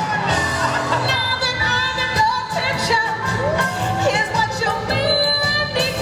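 Pop song with singing over a beat.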